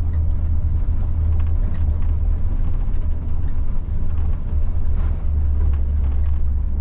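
Setra S 516 coach driving steadily, heard from inside the front of the cabin: a continuous low engine drone with road noise over it.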